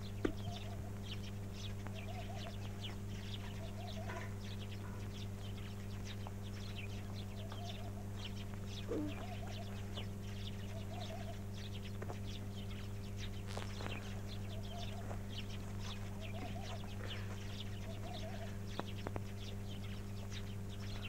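Small birds chirping, many short high chirps, with a few short lower animal calls, over a steady low hum.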